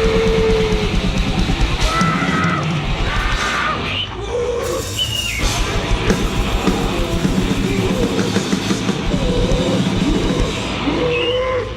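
Grindnoise/noisecore recording: a dense wall of distorted noise and drums, with squealing pitched tones that bend up and down. It thins briefly about four seconds in, then carries on.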